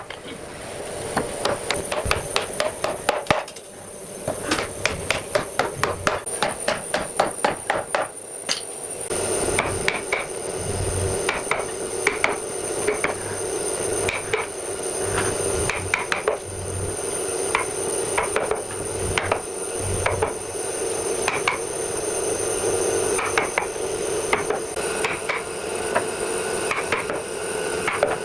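Hammering on wood, about four quick, even strikes a second, for the first eight seconds or so. Then a steady machine hum sets in, with irregular knocks over it.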